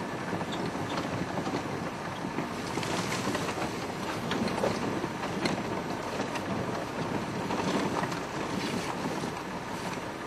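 Open safari vehicle driving slowly off-road through bush: steady engine and tyre noise with scattered rattles, knocks and clicks of the vehicle and brush.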